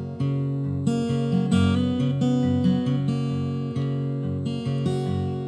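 Background music: a strummed and picked acoustic guitar playing a country song's instrumental intro, with no singing yet.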